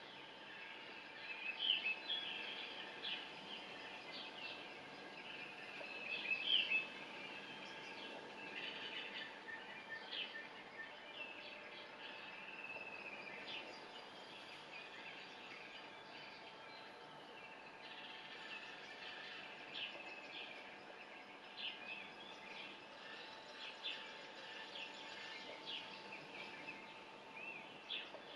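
Birds chirping and calling in a natural outdoor ambience, many short chirps throughout, with louder flurries about two and six seconds in, over a faint steady hum.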